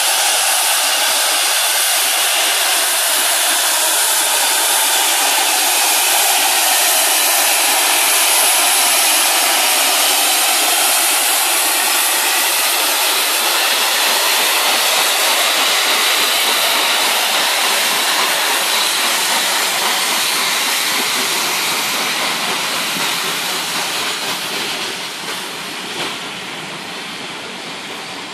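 Peppercorn A1 class three-cylinder Pacific steam locomotive 60163 Tornado working past with its train, a loud steady hissing roar. It fades over the last several seconds as the coaches roll by.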